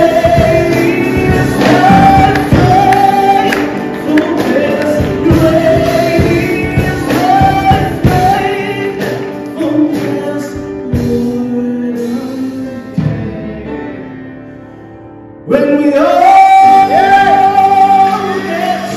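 A man sings a gospel song into a handheld microphone over musical accompaniment, holding long notes. About two-thirds of the way in the music falls quiet, then the voice comes back in suddenly and strongly on a long held note.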